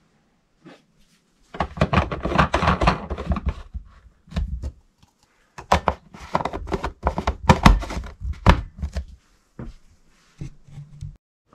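A vacuum flask being closed: its stopper and red plastic cup-lid are screwed on by hand, giving quick runs of clicking and scraping from the threads, with knocks as the flask is handled. There are two such runs of a few seconds each, then a few single clicks near the end.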